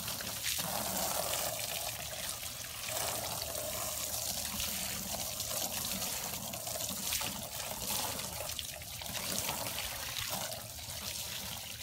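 Garden hose spraying water onto vinyl house siding: a steady rushing hiss with splashing that rises and falls in level.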